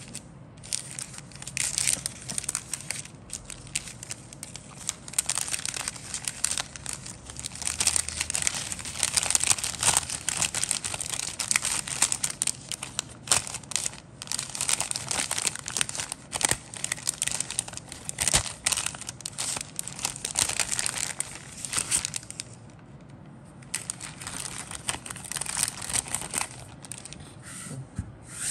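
Clear plastic bag crinkling and rustling as plastic model-kit sprues are handled in it, irregular and crackly, with a short break about two-thirds of the way through.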